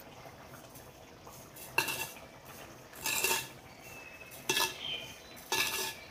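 A metal spoon stirring sugar into steamed beaten-rice flakes in a metal pot, clinking against the pot four times, each clink ringing briefly.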